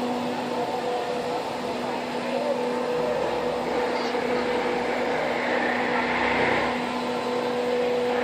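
Chain swing ride spinning, with a steady hum from its drive machinery over a low rush, and faint voices of the crowd.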